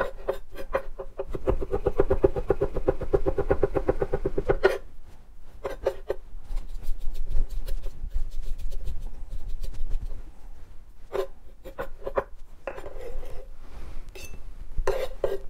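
Chef's knife mincing garlic on a wooden cutting board: a quick, even run of knife strikes for about three seconds, then scattered single taps and scrapes of the blade on the board.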